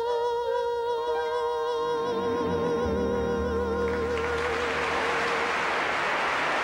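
A man holds the final sung note with vibrato as an orchestra comes in underneath with a low sustained chord about two seconds in. About four seconds in the note ends and a large audience applauds.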